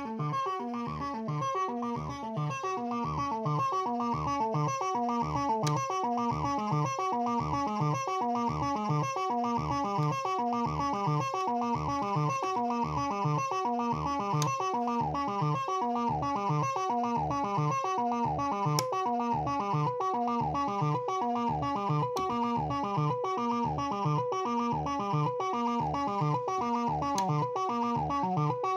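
Moog Werkstatt-01 monophonic analog synthesizer playing a fast, repeating sequenced pattern of short plucky notes, stepped through by an SQ8 step sequencer, with a deeper note recurring about every second and a half.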